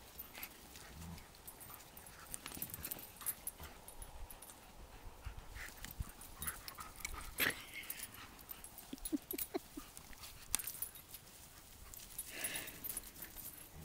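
Two Labrador retrievers chewing and tugging at a torn fabric dog bed: faint rustling and scuffling with scattered clicks, and one sharper click about halfway through.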